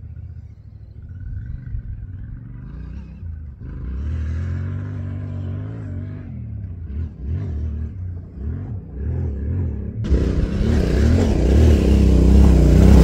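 Dirt bike engine revving up and down under load as the bike climbs a steep dirt hill, getting louder as it comes closer. About ten seconds in it turns suddenly much louder and close.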